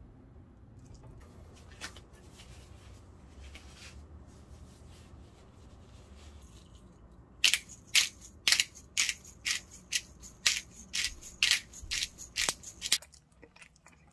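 Hand-twisted pepper grinder grinding peppercorns into a small dish: a run of about a dozen sharp crunches, roughly two a second, starting about halfway through. Before that, only faint handling noises.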